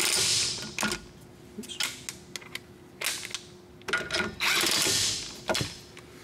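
DeWalt 20V brushless cordless impact wrench driving the front brake caliper anchor bracket bolts, in two bursts of rapid rattling hammering about four seconds apart, the second one longer.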